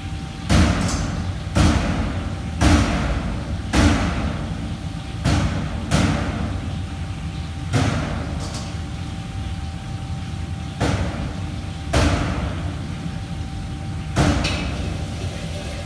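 A cleaver chopping on a wooden block: about ten heavy thuds at an uneven pace, roughly one every second or so, each echoing in the room. A steady hum runs underneath.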